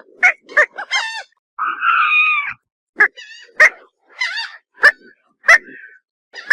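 Pelican calling: a run of short, harsh squawks with brief silent gaps, and one longer rough call about two seconds in.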